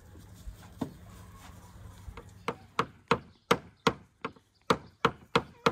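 Garden secateurs snipping through a raw sturgeon's fins: a single sharp click just under a second in, then a quick, even series of crisp snips, about three a second, from about two and a half seconds in.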